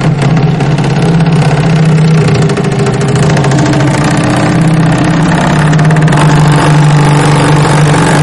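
Water draining in a swirling vortex through a sink drain beneath an upturned Pyrex bowl: a loud, steady rushing drone with a low hum that wavers slightly.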